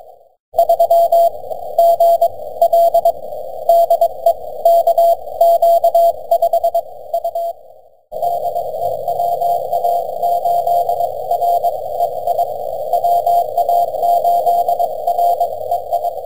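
Morse code (CW) from a ham radio receiver: a keyed tone around 650 Hz, sending dots and dashes over band hiss squeezed into a narrow CW filter. It drops out briefly about half a second in and again near the middle, then resumes with the same hiss and a fainter keyed signal.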